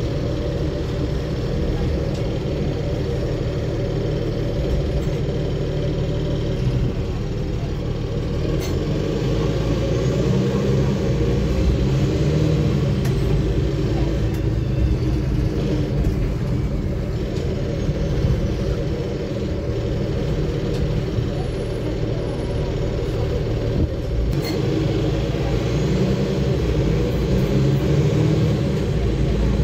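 Cabin sound of a 2009 Nova Bus city bus under way: the engine and drivetrain run with a steady low hum, mixed with road noise from the tyres.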